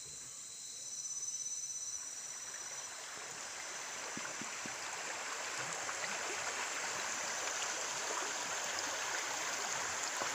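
Shallow stream running over rocks, a steady rush of water that swells up after the first couple of seconds and then holds even. At the start, insects buzz in thin high steady tones that fade out.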